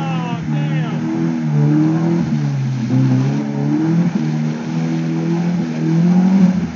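A stock Jeep's engine revving up and down in steps as it churns through a mud hole, with its wheels spinning and throwing mud.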